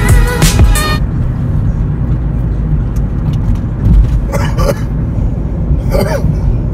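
Car cabin noise while driving: a steady low rumble of engine and road. Music cuts off about a second in, and two short pitched sounds come later, one about four and a half seconds in and a shorter one about six seconds in.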